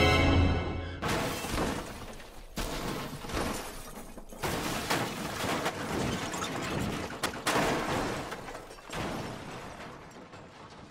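Car crash: a car rolling over and over, a long run of heavy impacts with metal crunching and glass shattering, dying away near the end. Orchestral music fades out in the first second.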